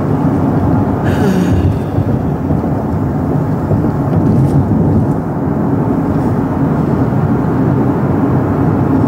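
Steady low rumble of a car driving in traffic, heard from inside the cabin.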